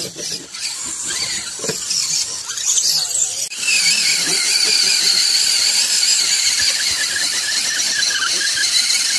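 Electric motors and geared drivetrains of radio-controlled scale crawler trucks whining under load as they crawl through snow: a high, steady whine that breaks off sharply about three and a half seconds in and comes back stronger.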